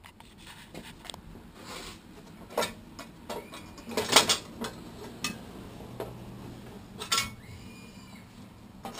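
Metal clanks and rattles of a lawnmower engine's metal top cover being worked loose and lifted off, with several separate knocks, the loudest about four seconds in.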